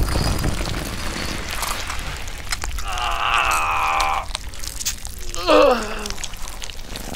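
A man's strained yell held for about a second, then a louder cry sliding down in pitch, like a pained groan. Scattered crackles and rustling run underneath.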